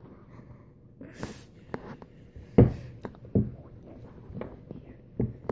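Irregular thumps and rustles, the loudest about two and a half seconds in.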